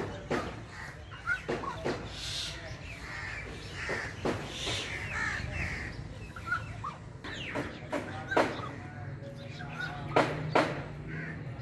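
Rufous treepie calling: a string of sharp, clipped notes with a few whistled, gliding notes among them.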